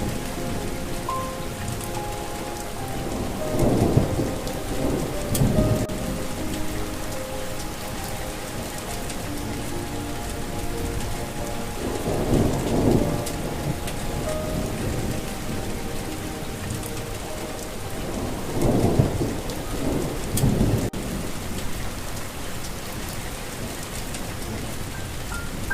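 Steady rain with rolling thunder that swells up about five times, while a soft melody of gentle held notes plays quietly under the rain.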